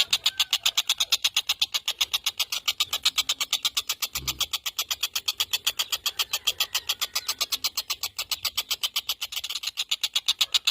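Tengkek buto kingfisher calling in a long, fast rattling series of sharp, high repeated notes, about seven a second. There is a brief low thump about four seconds in.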